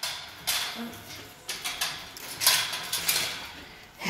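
Wire dog kennel panels and gate rattling in several short bursts as they are handled.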